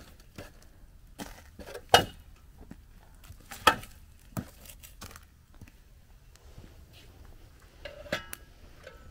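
Long metal fire tongs clanking against burning logs, a metal grate and the steel bowl of a fire pit as the fire is arranged. A few sharp clanks and knocks, the loudest about two and about three and a half seconds in, and another near the end.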